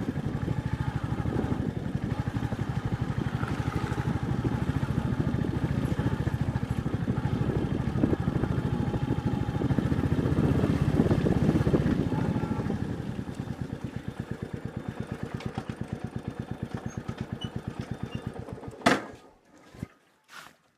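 Royal Enfield Meteor 350's single-cylinder engine running at low speed with an even, pulsing beat; it swells for a few seconds past the middle, then eases off. Near the end it stops abruptly with a sharp knock.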